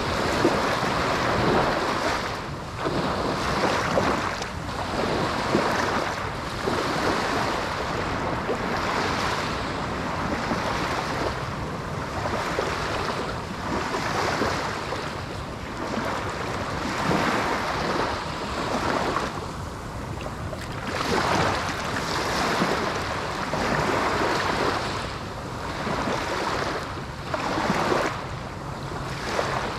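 Small ocean waves breaking and washing on a sandy beach, a continuous rushing surf that swells and fades every couple of seconds, with some wind noise on the microphone.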